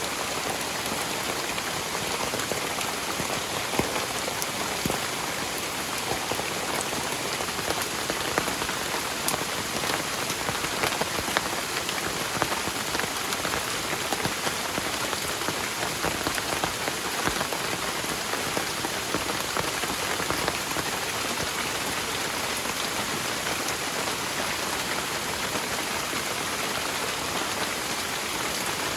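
Heavy rain falling steadily, with many individual drops striking close by as sharp little ticks over a dense, even hiss.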